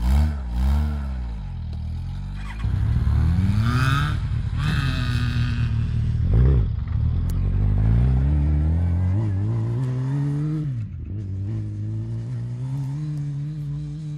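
Off-road buggy engines revving: a few quick throttle blips at the start, then a buggy accelerating hard, its engine pitch climbing and falling repeatedly, with a thump about six and a half seconds in. In the last few seconds it runs lower and steadier and is quieter.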